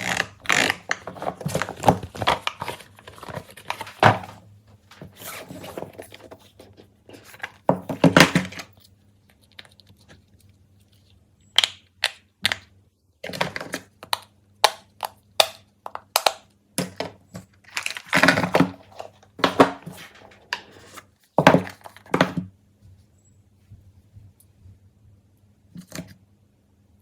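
Plastic fidget toys being handled: a string of sharp clicks and thunks with some rustling and crinkling, broken by a few short pauses.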